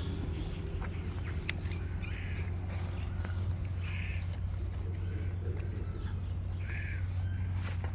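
Outdoor bird calls: four short, harsh calls roughly two seconds apart, with faint high chirps between them, over a steady low hum.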